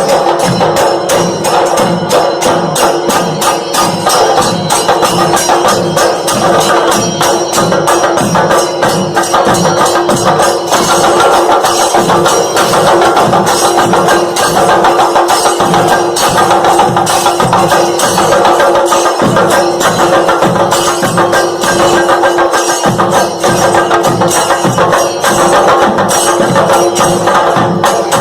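Background music with a quick, steady percussion beat of tapping and jingling over a held drone note.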